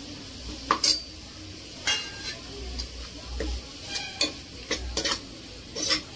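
Steel spoon scraping and stirring chopped vegetables frying in a pressure cooker, irregular scrapes about once a second over a steady sizzle.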